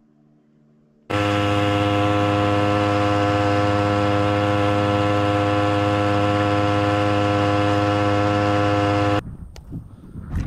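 Toyama 3 hp two-stroke outboard motor pushing a fishing kayak along at a steady speed: one even, unchanging drone that cuts in abruptly about a second in and cuts off near the end. After it comes wind on the microphone and water at the shore.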